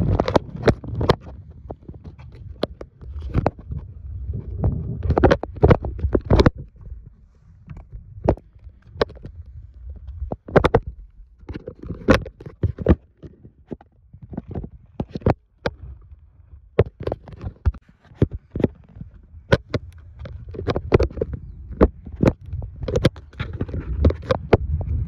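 Kick scooter rolling over a cracked asphalt path, heard from a device fixed to it: a low rumble from the wheels that comes and goes, with frequent irregular sharp knocks and rattles as it jolts over the cracks.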